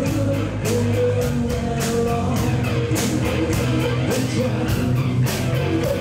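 Live rock band playing loud: electric guitars and bass over a steady beat of drum and cymbal hits, with a singer's voice.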